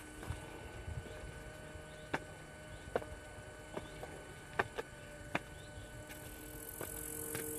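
Footsteps on stone steps and a stone path, a light tap about every second, over a faint steady hum.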